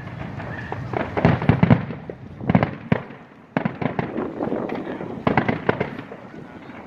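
Aerial fireworks going off: clusters of sharp crackling bangs with rumbling booms between them, a burst of crackles about a second in, more around three, four and five seconds in.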